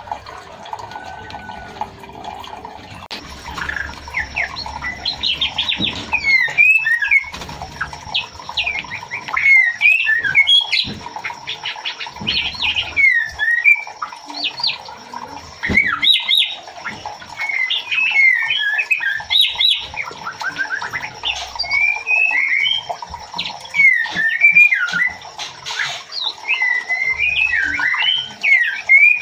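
Female white-rumped shama calling to a male: bursts of fast, sharply bending chirps and trilled notes, starting about three seconds in and repeating with short pauses.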